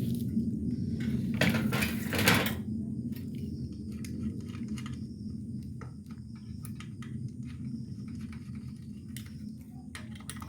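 Scattered clicks, knocks and clinks of ceiling fan blades and their fixing nuts being handled, with a louder rattle about two seconds in, over a steady low hum.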